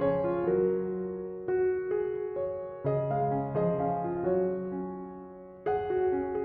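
Soft background piano music, slow chords and melody notes struck and left to fade.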